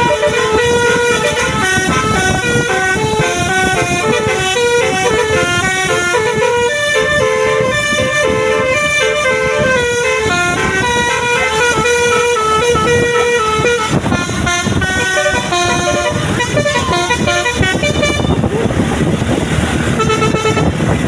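Basuri telolet musical vehicle horn playing a tune of quick stepped notes over road and engine noise. The melody breaks off about two-thirds of the way through, leaving traffic noise broken by short further runs of notes.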